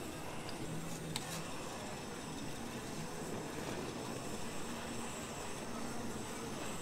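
Handheld butane blowtorch running with a steady hiss as its flame caramelizes the sugar topping on custard cups. A couple of faint clicks come about a second in.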